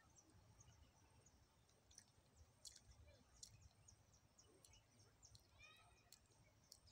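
Near silence: faint outdoor ambience with scattered faint clicks, and a brief series of chirping notes a little before the end.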